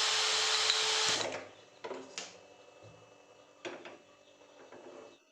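Loud power tool from building work in the house, running with a steady whine and stopping abruptly about a second in, followed by a few scattered knocks.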